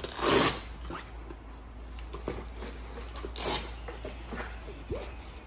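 Hook-and-loop retention straps inside a padded nylon rifle bag being pulled open: two short tearing rasps, one right at the start and one about three and a half seconds in, with fabric rustling and light knocks of the rifle between.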